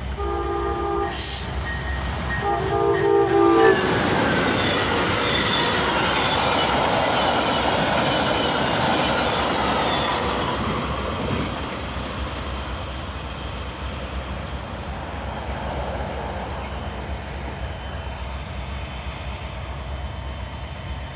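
Amtrak Wolverine passenger train, led by locomotive IDTX 4632, sounds two horn blasts of a multi-note chord, each about a second long, as it approaches. It then passes close by with loud, steady wheel-on-rail noise and clickety-clack that drops off about eleven seconds in to a lower rumble as the train moves away.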